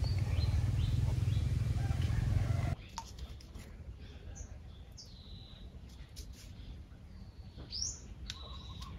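A loud, steady low noise cuts off sharply a little under three seconds in. Then, much quieter, small birds chirp with short high whistled calls and a few clicks, and a lower repeated call comes in near the end.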